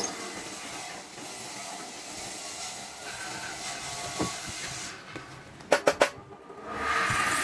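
A steady hiss, then a quick run of about four sharp knocks near the end as a wooden disc is handled on a metal lathe spindle.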